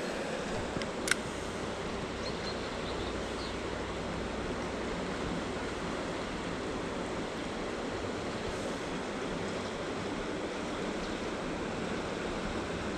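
River water flowing steadily, with a single sharp click about a second in.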